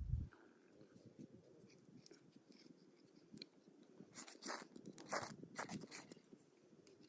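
A steel striker scraped hard down a quarter-inch ferrocerium rod: a run of about five short, sharp scrapes in the second half, as sparks are thrown onto fatwood shavings to light a fire.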